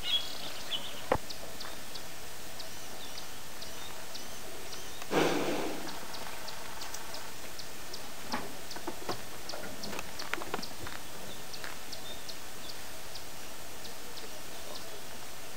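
White rhinoceros feeding at close range: faint ticks and snaps throughout, typical of grass being cropped and chewed, with a sharp click about a second in and a short, loud rush of noise about five seconds in.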